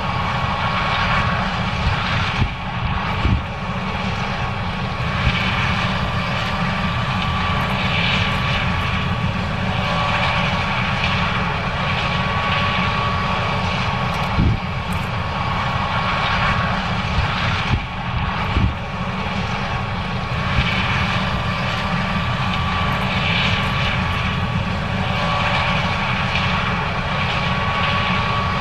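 John Deere 9610 combine running steadily while harvesting corn: a constant engine and machinery drone with a high whine over it. A few brief knocks come through, two close together near the start and two more around the middle.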